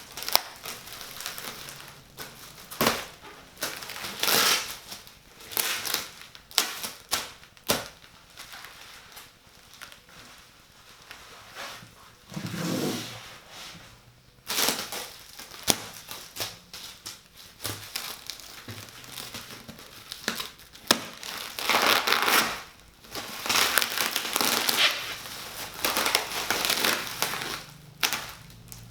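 A large PC case's cardboard box and packing materials being handled and pulled apart. Irregular sharp clicks and knocks alternate with stretches of rustling and crinkling, with a lower scraping sound about halfway through.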